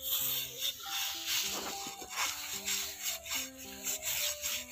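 Sand being scrubbed round a metal kadai under a bare foot: a gritty rasping in irregular repeated strokes. Background music with held notes plays over it.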